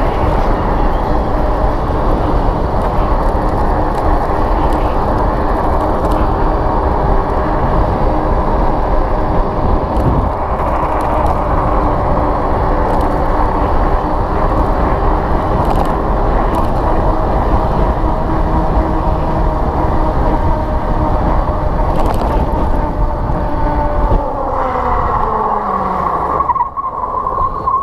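Juiced HyperScrambler electric bike ridden at about 32 mph: heavy wind rush on the microphone with a steady whine from the motor and tyres. Near the end the whine falls in pitch as the bike slows, and a higher steady tone comes in.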